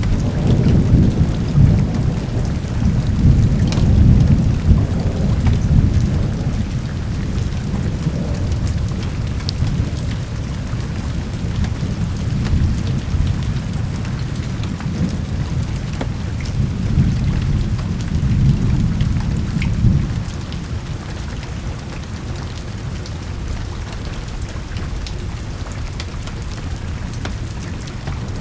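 Steady rain with rolling thunder, the rumble swelling heavily in the first few seconds and again about two-thirds of the way through, then easing to a lower roll.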